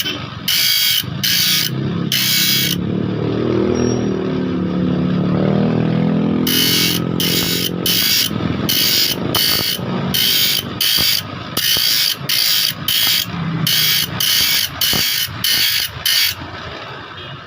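A file rasping across the teeth of a large saw blade in quick, even strokes, about two a second. The strokes stop for about three and a half seconds, and during the break an engine-like hum rises and falls in pitch.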